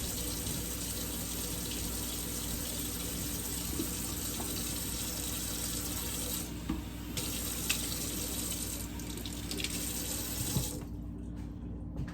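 Kitchen tap running steadily into the sink, with a few small clinks, then turned off about eleven seconds in.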